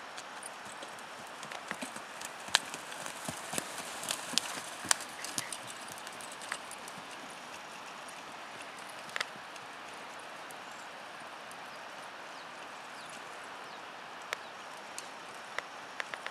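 Hoofbeats of a small pinto horse pulling a two-wheeled cart on sand, with scattered sharp clicks. They come thickly in the first few seconds, thin out to a steady hiss in the middle, and pick up again near the end.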